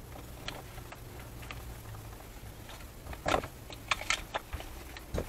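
Clicks and light knocks from handling an Eberspächer diesel air heater as it is turned over and worked on, with a cluster of louder clacks about three seconds in and another just before the end.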